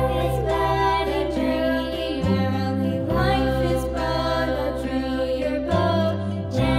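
Background music: sustained held chords over a steady low bass, changing chord a few times.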